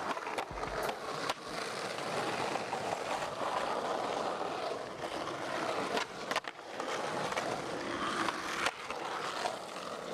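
Skateboard wheels rolling steadily on an asphalt court, with sharp clacks of the board hitting the ground, several close together about six seconds in.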